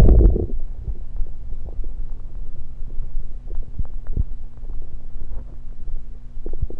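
Stomach gurgling, recorded close against the belly after gulping carbonated diet cola: a loud gassy surge in the first half second, then a low rumble with many small, irregular bubbly pops.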